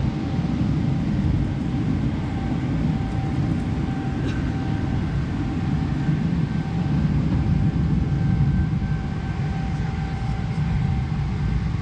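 Steady cabin noise of a jet airliner: an even low rumble of engines and airflow, with a faint hum coming and going above it.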